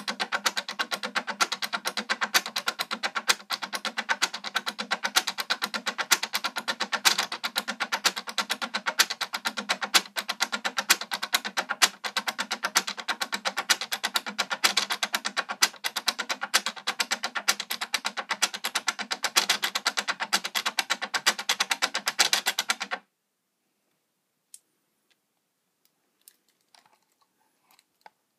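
Stepper motors of a homemade CNC machine moving a laser-diode head along a cut: a rapid, uneven stream of clicks that stops abruptly about 23 seconds in. A few faint ticks follow near the end.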